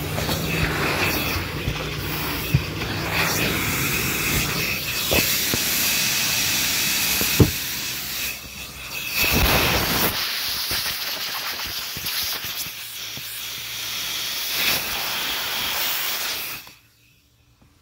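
Vacuum cleaner running, a loud rushing hiss of suction with rattles and a few sharp knocks as the nozzle works over the car's interior. Near the end the noise drops away suddenly to near silence.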